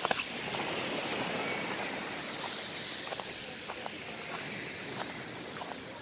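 Steady rush of Black Sea surf on a sandy beach, with a few faint footsteps on sand in the second half.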